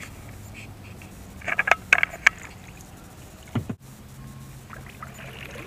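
A small boat's motor running with a steady low hum, with a few sharp clicks and knocks about one and a half to two seconds in. The hum breaks off abruptly about two-thirds of the way through and comes back slightly steadier.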